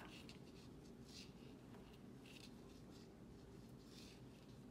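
Near silence with faint rustling of yarn and knitting needles: a few soft scrapes about a second apart as bobble stitches are cast off one over another.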